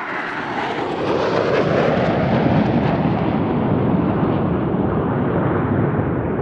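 A formation of eight KAI T-50B jet trainers, each with a single turbofan, passing overhead. Their jet roar swells over the first couple of seconds, falling in pitch as they go by, then slowly fades.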